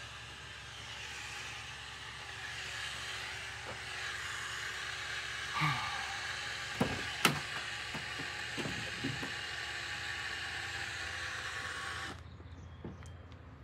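A few clicks and knocks as a Chevy Express van's side cargo door is unlatched and swung open, the sharpest click about seven seconds in. Underneath is a steady hiss that cuts off suddenly near the end.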